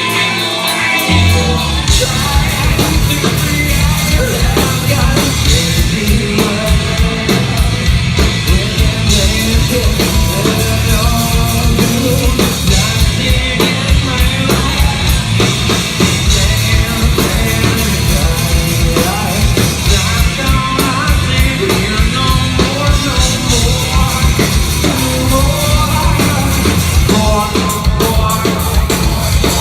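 Metal band playing live at full volume, with singing and shouting over a rock drum kit; the bass and drums come in hard about a second in.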